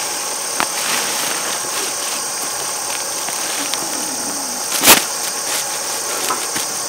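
An engine running steadily under a high hiss, with one sharp knock about five seconds in.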